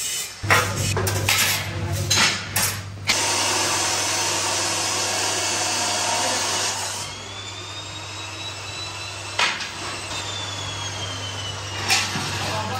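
Steel tube pieces clanking sharply several times, then a steady power-tool noise that drops to a quieter run with a faint high whine about halfway through.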